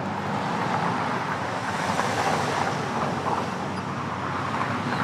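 Street traffic: a car passing by, its tyre and engine noise growing louder to a peak about two seconds in and then fading.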